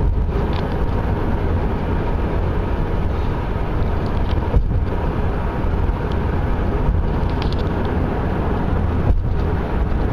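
Steady road and tyre noise with a deep rumble, heard from inside a car's cabin while driving at highway speed.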